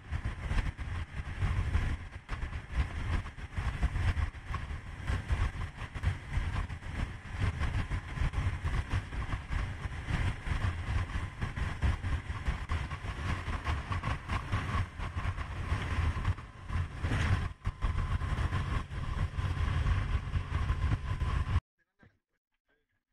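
Rushing wind and water noise from a small outboard-powered fishing boat running at speed, heard from the bow, buffeting and uneven with a faint steady hum. The noise cuts off abruptly near the end.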